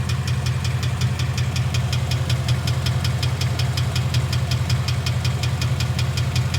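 2011 Mustang GT's Coyote 5.0 V8 engine running at a steady speed with a rapid, even knocking: rod knock from a failed connecting-rod bearing.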